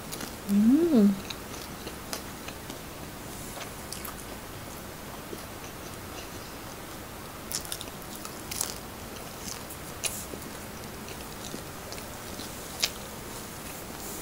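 Close-miked chewing and biting of fried lumpiang Shanghai (spring roll), with scattered crisp crunches, a cluster of them around the middle and another near the end. About half a second in, a short hummed "mmm" rises and falls in pitch.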